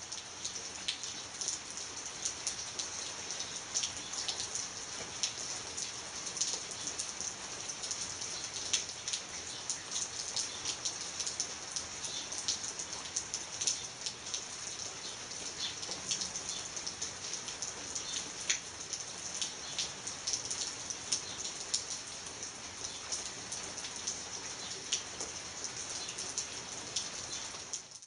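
Steady rain falling on wet pavement, a dense hiss of many small drop impacts. It cuts off suddenly at the end.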